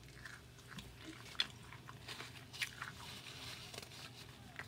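A person biting and chewing a mouthful of food, with scattered short wet smacks and clicks of the mouth.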